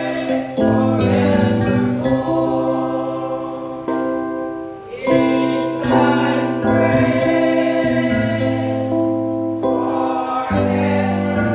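Slow church music with a choir sound: held chords that change every second or two over a steady bass line.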